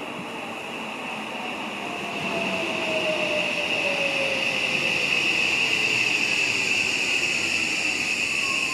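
Odakyu 5000-series (5051F) electric train running through a station. The running noise grows louder about two seconds in, with a steady high whine and slowly falling tones from its full-SiC VVVF inverter traction motors.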